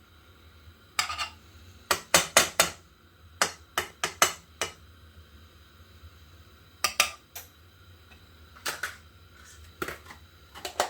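A metal utensil clinking and tapping against a cooking pot in several short runs of quick strikes, as margarine is worked in the pot to melt it for a gravy.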